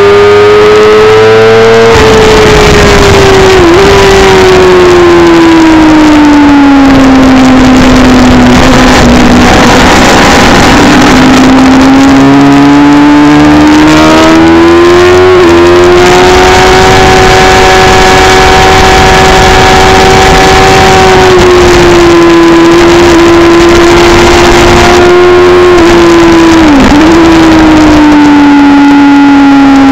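Sport motorcycle engine running hard at high revs on track, heard loud from an onboard camera with heavy wind rush; its pitch slowly falls and rises through the corners, with a few short dips in revs, about four seconds in, around the middle and near the end.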